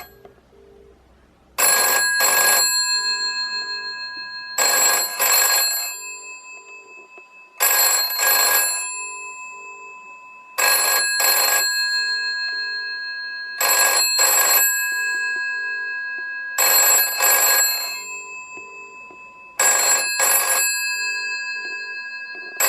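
A vintage GPO 746F rotary telephone's mechanical bell ringing in the British double-ring cadence: two short rings about every three seconds, seven times, each ring fading out before the next. Faint paired beeps of the ringing tone from the calling line fall between the rings.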